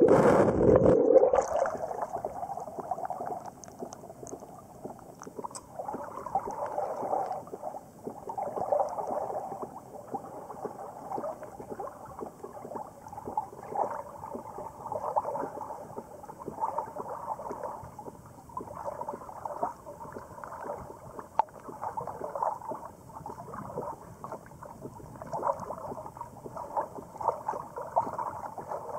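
A loud rush of water for about the first second and a half, heard with the microphone underwater, then small waves lapping and sloshing against a kayak hull in uneven pulses.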